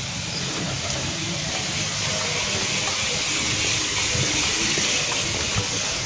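Running water, a steady rushing hiss that grows a little louder through the middle and eases near the end.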